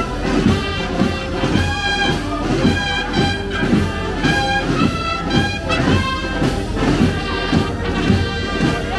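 Spanish banda de música playing a processional march: brass carrying held melody notes over a steady beat of about two strokes a second.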